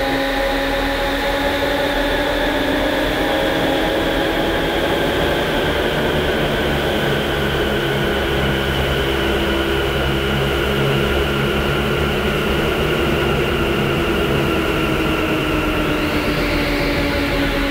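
Sustained synthesizer drone from an electronic horror score: several held tones, a few of them slowly bending up and down in pitch, over a steady low hum.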